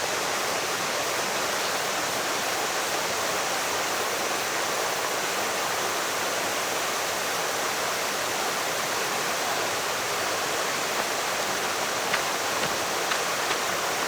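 Mountain valley stream rushing steadily over rocks, with a few faint clicks near the end.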